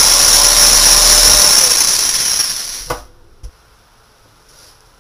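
Handheld electric drill running at speed, boring a hole through the plastic bottle cap; the motor winds down and stops about three seconds in, and a light knock follows half a second later.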